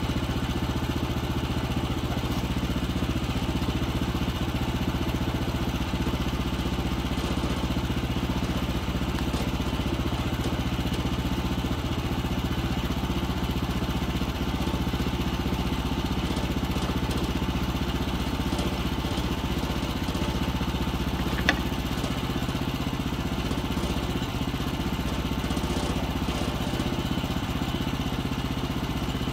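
The 14 hp engine of a Woodland Mills HM126 sawmill running steadily at idle, with one sharp click about two-thirds of the way through.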